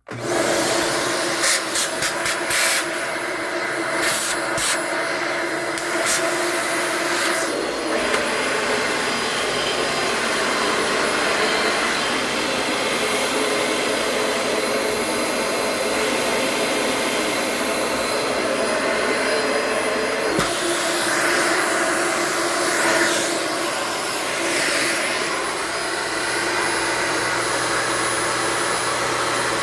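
Dyson DC18 upright vacuum cleaner switched on, its newly fitted motor starting abruptly and running steadily with a whine: a test run after a motor replacement. A few sharp clicks sound in the first six seconds.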